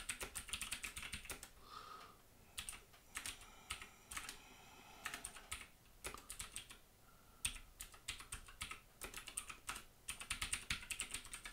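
Typing on a computer keyboard: keys clicking in quick runs separated by short pauses, as a terminal command and then a password are entered.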